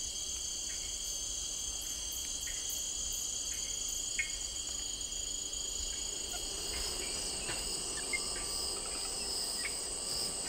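Steady chorus of insects, several high-pitched tones sounding together without a break, with a few faint ticks.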